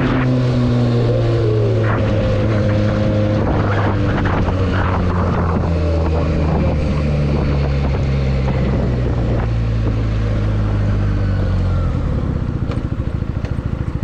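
Benelli TNT 300's parallel-twin engine running through its stock exhaust, its note easing slowly lower, then settling to a pulsing idle about twelve seconds in.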